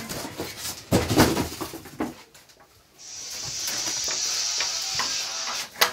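Plastic wrapping and packing sheets rustling and crinkling as a plastic-wrapped keyboard is lifted and handled, with a loud rustle about a second in. After a brief lull, a steady hiss for the last few seconds.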